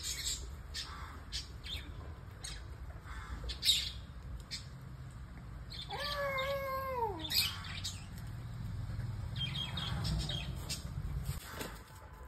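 A cat meowing once, about six seconds in: a single long meow that drops in pitch at the end. Faint scattered clicks are heard around it.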